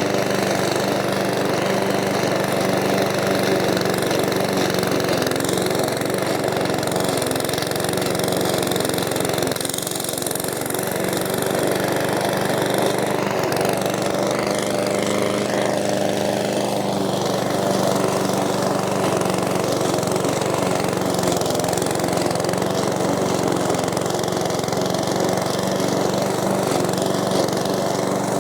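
PowerSmart 170cc four-stroke single-cylinder lawn mower engine running steadily, with a brief dip in level about ten seconds in.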